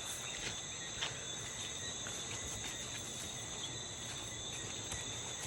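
Night insect chorus of crickets trilling steadily in high, unbroken tones, with a few faint clicks, the clearest about a second in.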